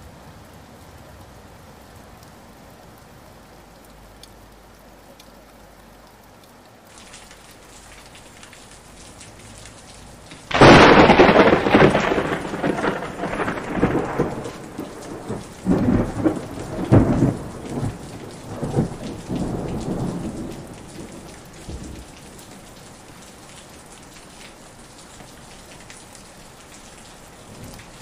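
Steady rain falling, with a sudden loud thunderclap about ten seconds in that rumbles on in several swells for about ten seconds before dying back to the rain.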